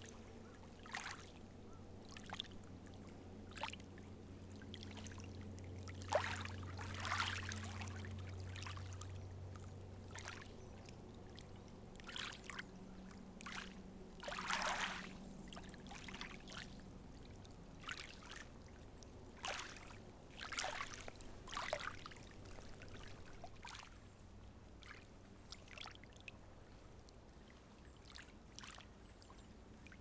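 Small waves lapping and splashing irregularly against the shore of Lake Shikotsu, some splashes stronger than others, over a low steady hum that fades after about ten seconds and returns near the end.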